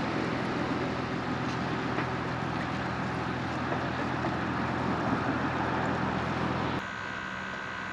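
Steady low machine hum under a wash of noise, which shifts abruptly about a second before the end.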